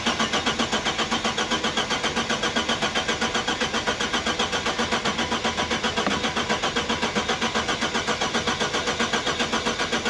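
Car engine cranking on its starter motor for about ten seconds, turning over in an even rhythm of about six pulses a second without firing, then stopping. It does not start because the car's crash fuel cut-off has been triggered, so no fuel reaches the engine.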